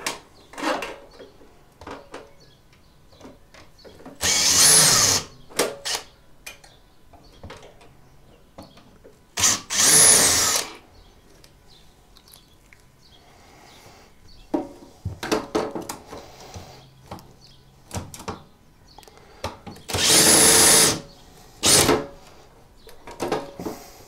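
An electric screwdriver unscrewing the screws of a washing machine's motor control board: three runs of about a second each and a shorter one near the end, with a high motor whine. Small clicks and knocks of handling come in between.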